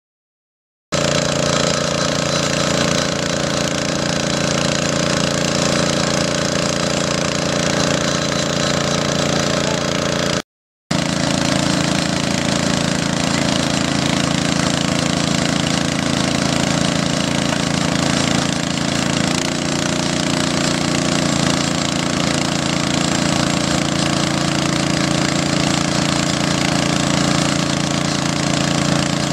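Dando Terrier drilling rig running while drilling: a steady engine drone with a fast, even mechanical rattle. It starts abruptly about a second in and drops out briefly near the middle.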